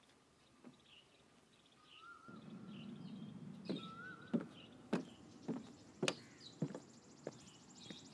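Birds chirping, with a couple of short whistled calls, over a low rumble that begins about two seconds in. From about three and a half seconds in come footsteps at a walking pace, roughly two a second. A faint, steady, high-pitched buzz joins about halfway through.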